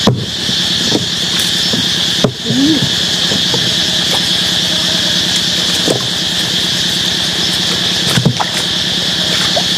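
Steady shrill chorus of forest insects, with a few brief knocks or rustles about a second in, a little after two seconds, around six seconds and near the end.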